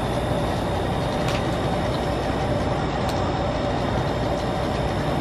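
Steady outdoor background noise: an even hiss with a faint constant hum underneath, unchanging throughout, with a couple of faint ticks.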